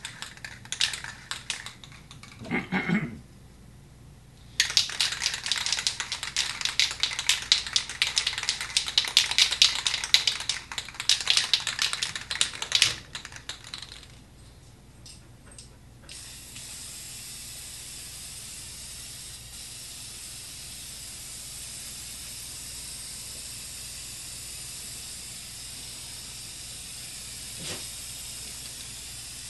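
A spray paint can being shaken, its mixing ball rattling rapidly for several seconds, followed by a long steady hiss of paint being sprayed.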